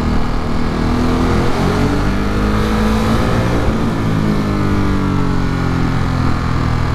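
Ducati Monster 937's V-twin engine pulling hard in second gear, its pitch climbing for a couple of seconds and then dropping back as the throttle eases, with a steady rush of wind and road noise.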